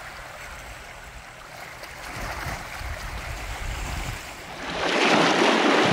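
Small waves of the Arctic Ocean lapping and washing against a rocky boulder shore, swelling into a louder wash near the end.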